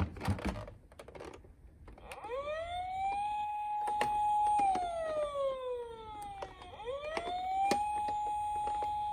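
Electronic siren of a toy ambulance, preceded by a few clicks. About two seconds in, a wail rises, holds for a couple of seconds, falls slowly, then rises again and holds.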